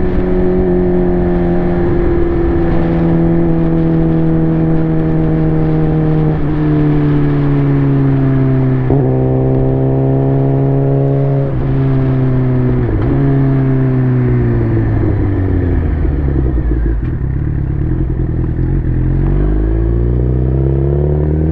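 Suzuki GSX-R 600's inline-four engine heard from the rider's seat, with wind rush under it. The engine note falls slowly as the bike slows, jumps up in pitch a few times along the way, drops lowest shortly before the end, then climbs again as it picks up speed.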